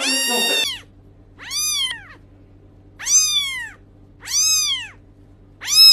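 Kittens mewing: a high meow breaks off within the first second, then four short, high-pitched mews that each rise and fall, coming about a second and a half apart, over a faint low hum.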